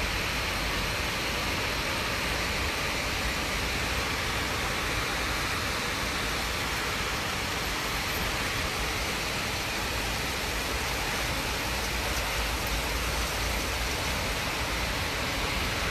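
Heavy storm rain driven by strong wind: a steady, even rush of noise that holds at the same level throughout.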